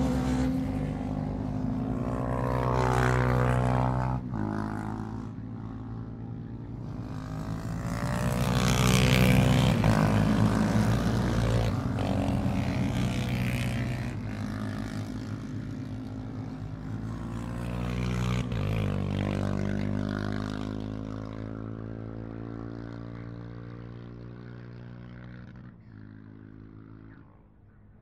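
Classic racing motorcycles passing one after another on the circuit, each engine note swelling and fading as it goes by. The loudest pass comes about nine seconds in, and the sound dies away near the end.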